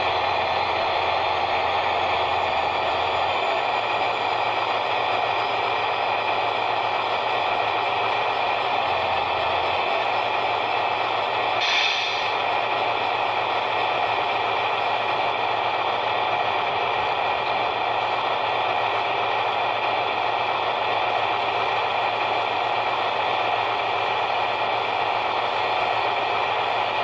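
Steady mechanical whine from an RC dump truck while its tipper bed slowly raises, with a brief higher hiss about twelve seconds in.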